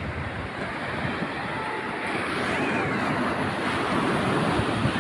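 Small sea waves breaking and their foam washing up over sand at the water's edge, a steady rush that grows louder from about halfway through.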